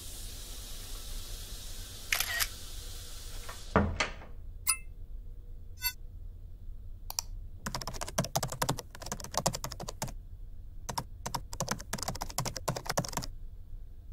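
A steady hiss that ends with a thump about four seconds in. Then a few separate clicks and a fast run of typing on a computer keyboard.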